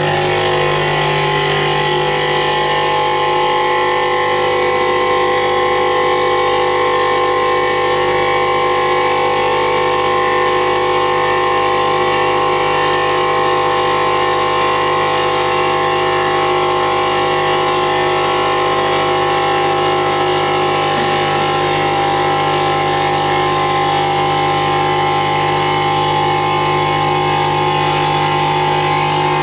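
CNC stone polishing machine running: a steady machine hum with several held tones over a constant hiss, not changing in pitch or loudness.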